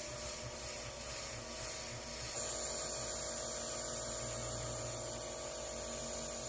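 Converted CNC milling machine's servo spindle at 4000 RPM with an end mill side-cutting steel: a steady hum with a high hiss over it, changing slightly in tone about two seconds in. The cut runs smoothly without chatter.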